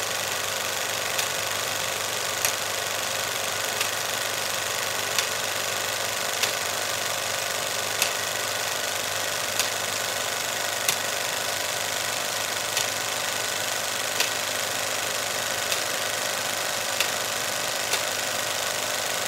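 Cinema film projector running steadily, with a sharp click about every second and a half.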